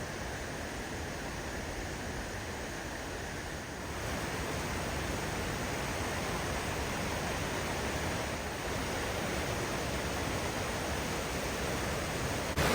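Rushing water of the Presque Isle River waterfall, a steady even roar that gets louder about four seconds in.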